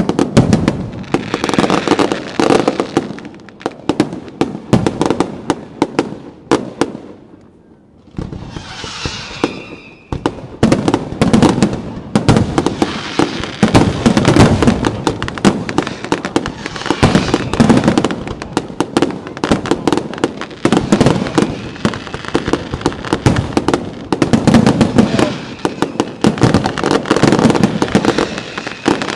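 Fireworks display finale: a dense barrage of rapid bangs and crackles. It drops to a short lull about seven seconds in, gives way to a hissing stretch, then the barrage starts up again.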